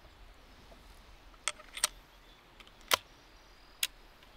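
Four sharp metallic clicks from a scoped hunting rifle being handled, the loudest about three seconds in.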